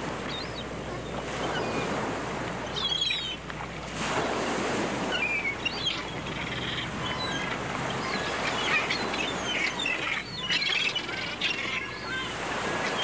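Seaside ambience: a steady wash of waves with birds chirping and calling in short bursts throughout.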